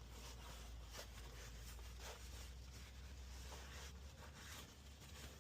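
Faint, soft rubbing and wiping strokes: a shop rag being run over the bolts of a transmission oil pan.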